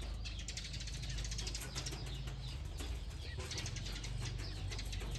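Chickens pecking grain from a metal feed trough: a dense patter of quick clicks and taps, over a low steady hum.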